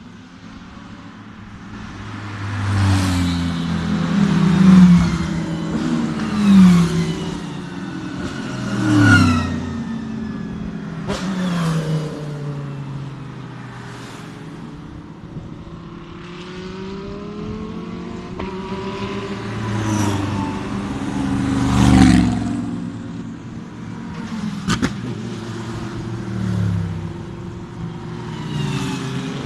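Race cars driving past one after another at low speed, engines revving up and down in blips. The loudest revs come about 5, 7, 9 and 22 seconds in, with a few sharp cracks among them.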